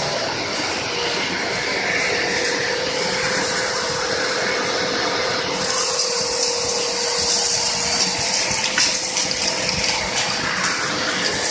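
Two-motor industrial vacuum cleaner running steadily with a rushing hiss of suction. The hiss grows brighter and louder about halfway through.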